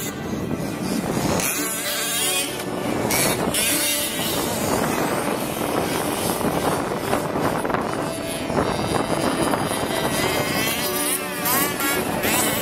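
Small two-stroke petrol engines of 1/5-scale RC cars buzzing, revving up and down as the cars drive.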